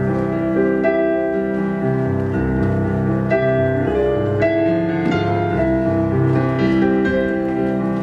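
Solo piano ballet-class accompaniment from a recording, playing held notes and chords that change every half second or so.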